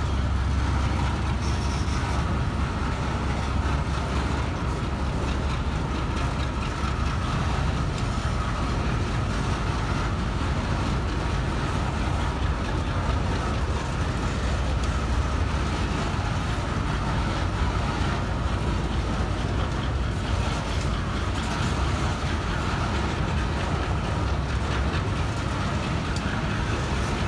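Freight train of steel coal hopper wagons rolling past close by: a steady rumble of wheels on the rails, with a scatter of faint clicks.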